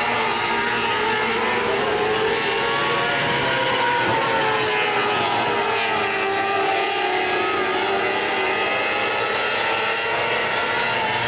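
Engines of several small winged dirt-track sprint cars running together on the track, their pitch wavering up and down.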